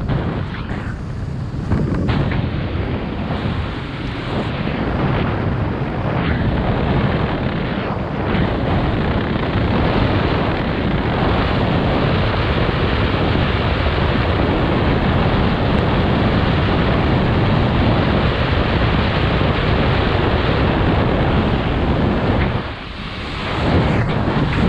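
Steady, loud wind rushing over the microphone of a skydiver's camera high above the ground, dipping briefly near the end.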